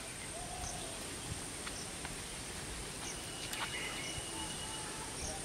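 Rural pond-side ambience: a steady high insect drone with a few short bird chirps over it, and a couple of faint ticks.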